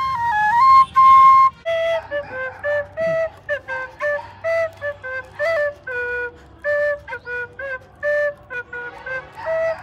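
Bamboo bansuri flute: for the first second and a half, held high notes played by mouth, dipping and rising back. Then a bansuri blown through the nose plays a melody of short, lower notes.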